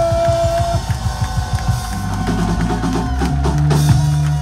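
Live band playing: a guitar holds a long steady note over a rapid run of drum hits, and the note stops just under a second in. From about two seconds in, a bass line and the drum kit carry on.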